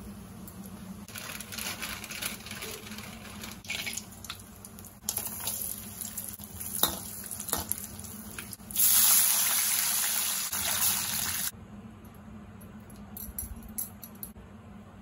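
Whole spices and cashews frying in hot oil in an aluminium kadai: a light sizzle with scrapes and clicks from a metal slotted spatula. About nine seconds in, water is poured into the pan with a loud rushing sound that lasts about two and a half seconds and stops sharply.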